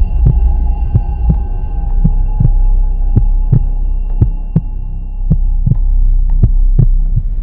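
Heartbeat sound effect: paired low thumps, a slow double beat about once a second, over a steady low drone with a faint held higher tone.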